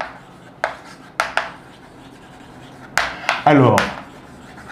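Chalk writing on a blackboard: a string of short, sharp taps and brief scrapes as each word is written, about seven strokes in all, irregularly spaced, with a pause in the middle.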